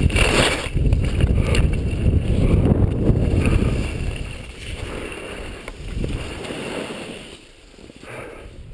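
Wind rushing over a helmet-mounted camera and skis sliding on snow during a downhill ski run. It is loud for the first four seconds or so, then fades toward the end.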